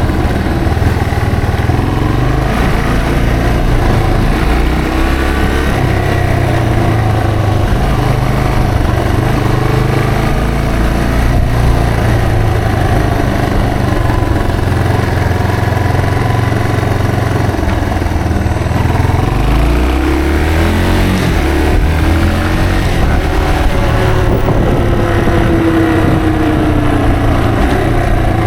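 Yamaha TW225's single-cylinder four-stroke engine running under way, its note rising and falling with the throttle. About two-thirds of the way through it drops low briefly, then climbs again in rising sweeps as the bike pulls away.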